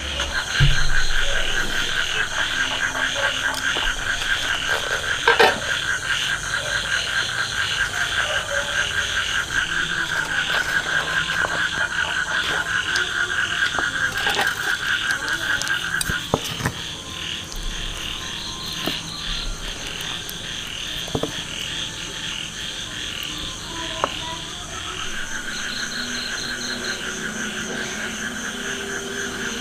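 A chorus of frogs calling at night in fast, steady pulsing trills. The most prominent trill drops out about sixteen seconds in and comes back near the end. A few sharp knocks stand out over it, the loudest about five seconds in.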